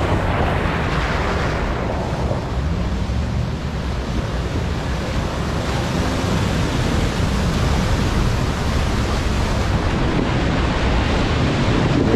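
Lifted Toyota Hilux pickup wading through a shallow river: a steady rush of water splashing and churning around its big tyres, with the engine running low underneath.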